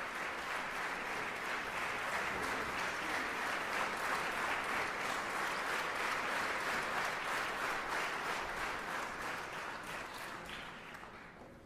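A concert-hall audience applauding steadily, greeting the soprano soloist before the aria, then dying away over the last couple of seconds.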